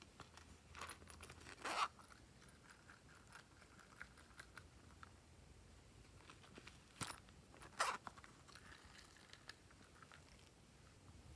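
Glossy slime being worked by hand: scattered sticky clicks and crackles, with louder crackling bursts about two seconds in and again around seven to eight seconds.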